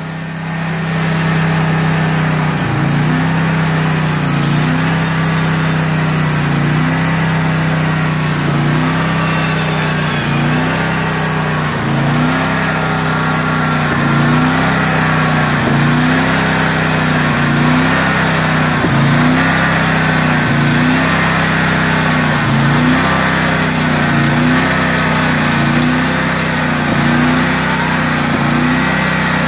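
Portable band sawmill's engine running under load as the band blade cuts through a log, with the engine note wavering regularly about every second and a half. It rises to full working level about a second in.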